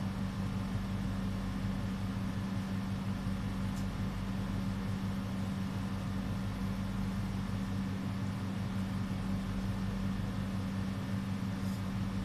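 A steady low hum at an even pitch and level, with a couple of faint light clicks, one about four seconds in and one near the end.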